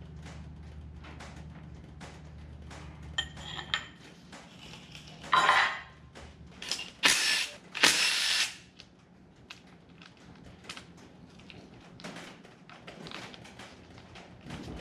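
Hand tools and metal engine parts being handled during teardown of a Ford 4.6L modular V8: scattered clicks and clinks, with three louder bursts of noise about halfway through.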